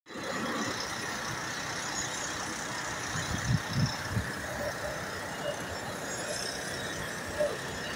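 Steady background noise of a building construction site, with a few dull knocks about halfway through.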